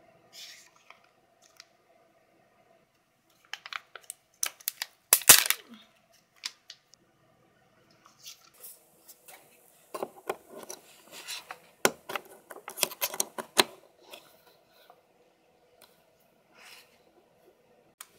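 Handling noises: paper inserts and cards rustling and tapping, then a run of scrapes and clicks as a power cable's plug is pushed into the power socket on the back of an iMac.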